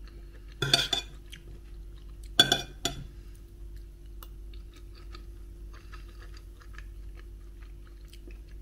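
Metal spoon scraping and clinking against a bowl of bulgur pilaf, loudest about a second in and again around two and a half seconds, then soft chewing with faint ticks. A steady low hum runs underneath.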